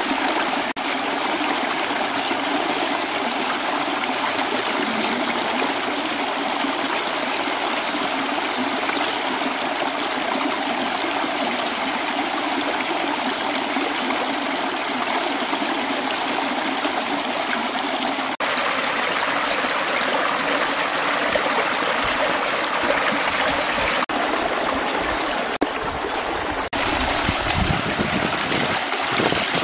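Shallow rocky stream running over stones, a steady rush of water with a steady high buzz over it for the first two-thirds. Near the end come a few splashes as hands scoop water from the stream.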